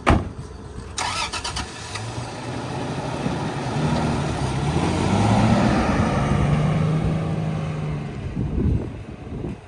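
Pickup truck engine running and revving as the truck drives up a dirt landing to pack it, its pitch climbing in steps and then holding, loudest about halfway through. A sharp knock comes right at the start.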